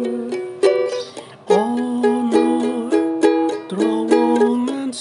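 Ukulele strumming chords in a steady rhythm, with a short break about a second in, as the instrumental part of a song.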